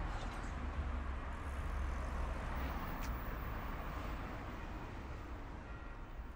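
A car passing on a city street, its tyre and engine noise swelling and then fading, over low traffic rumble. A brief click about three seconds in.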